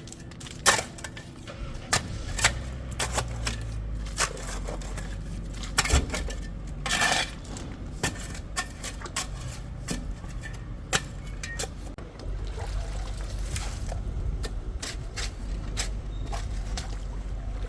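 Scattered sharp metallic clinks and knocks over a low steady engine-like rumble, which gets louder about twelve seconds in.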